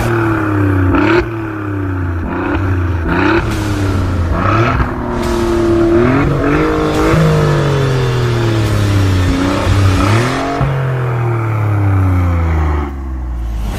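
Alfa Romeo Giulia's 510 cv twin-turbo V6 engine revving through several quick gear changes, its pitch gliding and then jumping sharply at each shift, with short cracks at some shifts. Later a long fall in pitch with a couple of short rev blips.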